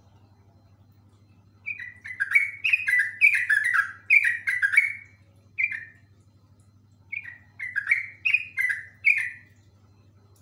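Yellow-vented bulbul singing its fast rolling song: quick, bubbly runs of short notes that each drop in pitch. Two runs come a couple of seconds apart, the first longer, with a single note between them.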